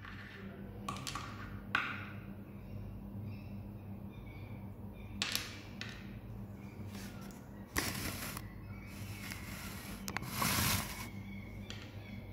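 Plastic Lego Technic pieces clicking and knocking on a wooden tabletop as a Lego tweezer picks them up and sets them down: scattered light clicks and a couple of short scrapes, the loudest a little after the middle, over a low steady hum.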